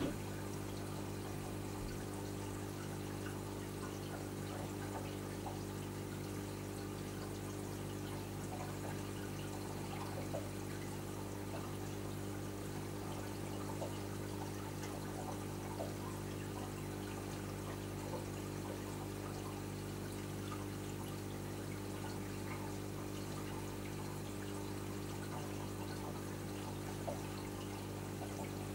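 Reef aquarium's water circulation: a steady trickling, pouring water sound over a constant low hum from its pumps, with a few faint ticks.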